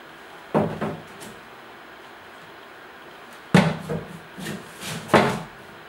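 Bricks of bundled banknotes set down into a grey plastic CB-500T currency box, making dull knocks: two about half a second in, then a run of five or so from about three and a half seconds in.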